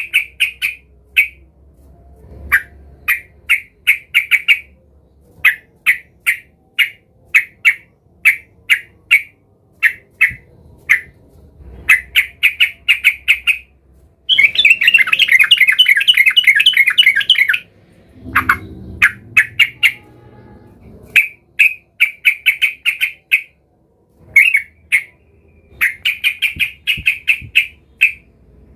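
Yellow-vented bulbul (trucukan) calling vigorously in the agitated, rival-seeking way keepers call 'emosi': quick runs of short chirping notes, with a long dense chattering burst about halfway through.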